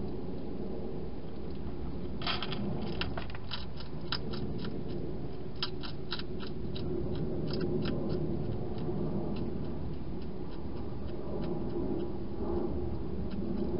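Wild hedgehog crunching dry food inside a plastic feeding box: a run of quick, irregular crisp clicks from about two seconds in, thinning out after about eight seconds, over a steady low background hiss.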